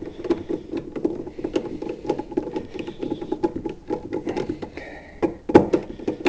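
Vinyl electrical tape being pulled off the roll and wrapped around the side of an electrical outlet: a dense crackling with many small clicks, and a sharper knock about five and a half seconds in.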